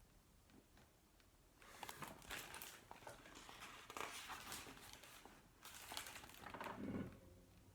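Rustling and crinkling of a book's pages being handled and turned, in a string of short bursts that begins a couple of seconds in.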